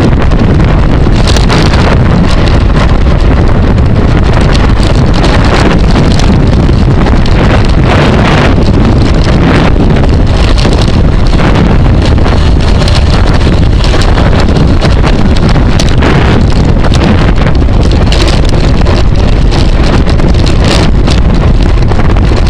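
Loud, steady wind buffeting on the microphone of a camera carried on a bicycle ridden at race speed, with constant quick gusty flutters.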